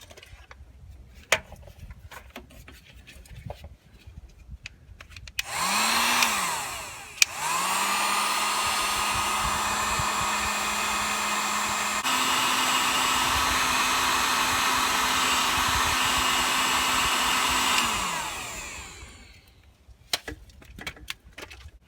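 Electric heat gun switched on about five seconds in, then cut off and restarted at once. It runs steadily with its fan whine, steps up slightly in pitch partway through, and winds down near the end. It is shrinking heat-shrink tubing over crimped wire butt splices. Faint handling clicks come before it starts.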